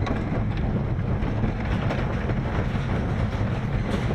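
Roller coaster train rolling along its track, a steady rumble with light rattling clicks from the wheels and cars.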